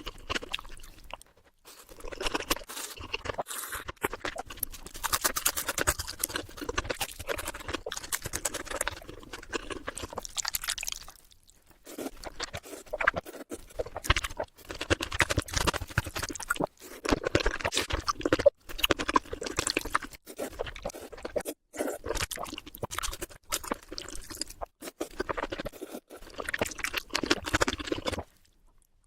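Eating sounds from a close microphone: mouthfuls of food chewed and crunched in a dense stream of quick crackles and clicks. There are short pauses about a second in, about eleven seconds in and just before the end.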